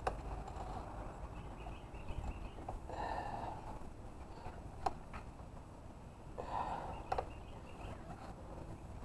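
A few soft scuffs and sharp clicks from someone moving about on dry dirt and pine needles, over a low steady rumble. The scuffs come about three seconds in and again past six seconds, with clicks around five and seven seconds.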